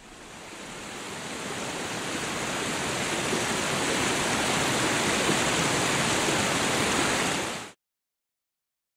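River rapids, water rushing over rocks: a steady wash of water noise that swells up over the first few seconds and cuts off suddenly near the end.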